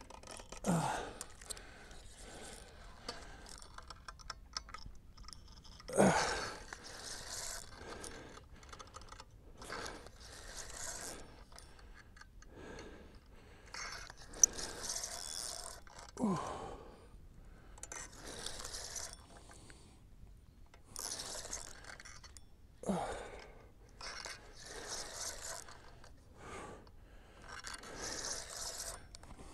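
Irregular scraping and crunching handling noise from a fishing rod and spinning reel being worked to free a hooked catfish that is hung up in submerged brush, with a few louder sudden sounds, the loudest about six seconds in.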